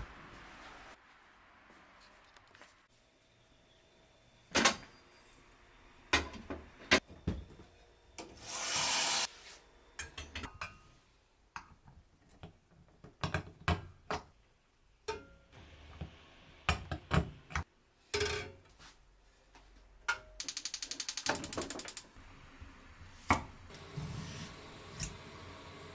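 Kitchen prep sounds: scattered taps and clicks as an eggshell is cracked and peeled over a cloth. There is a short rush of noise about a third of the way in and a fast, even run of ticks a little past two-thirds through. Near the end a knife knocks on a wooden cutting board as a cucumber is cut.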